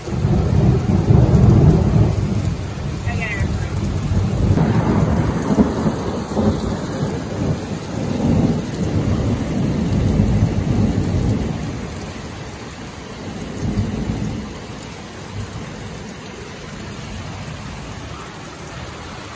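Rolling thunder over pouring rain: a loud low rumble that starts at once and rolls on in several swells for about twelve seconds before dying away, with one smaller rumble a couple of seconds later, leaving the steady hiss of heavy rain.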